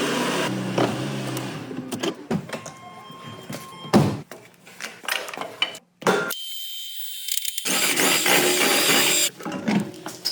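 Workshop tool sounds: a steady machine hum that stops about half a second in, then scattered sharp clicks and knocks, and a dense rush of mechanical noise lasting about a second and a half near the end.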